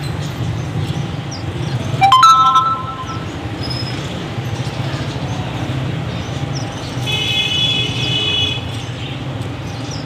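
Steady road traffic rumble with vehicle horns: a loud short honk about two seconds in, then a longer, higher-pitched horn about seven seconds in.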